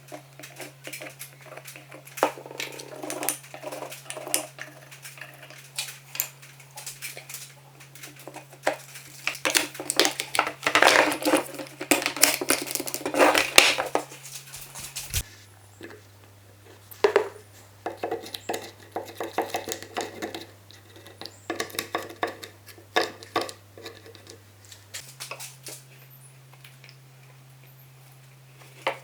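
Irregular clicks, taps and scraping of hand tools working on wood, busiest about halfway through, over a steady low hum that drops in pitch about halfway and returns near the end.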